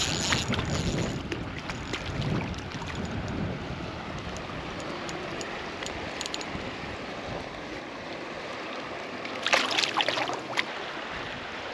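Steady rush of flowing stream water, with a short burst of sharp rattling clicks near the end.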